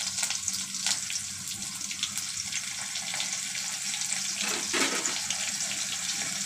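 Hot mustard oil sizzling and crackling in a kadhai, with garlic, curry leaves and a dried red chilli frying in it. There is a brief louder spurt of sputtering a little past halfway.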